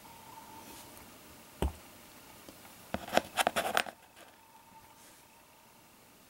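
Fingers turning a silver Roosevelt dime over on a piece of cardboard: a dull knock, then about a second of quick clicks and scrapes as the coin is handled.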